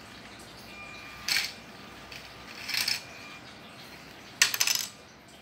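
Lego color-sorting robot bird at work: three short bursts of motor whirring and plastic parts clattering, about a second and a half apart, the last the loudest with a sharp clack at its start.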